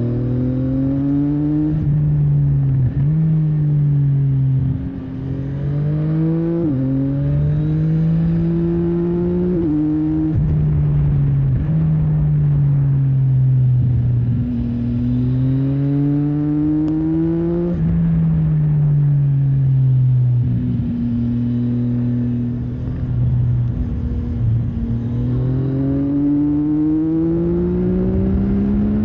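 CFMOTO 675NK's inline three-cylinder engine under way. It pulls hard through three quick upshifts early on, the pitch climbing and dropping sharply at each change, then rises and falls with the throttle twice more before climbing again near the end, over a steady wind rush.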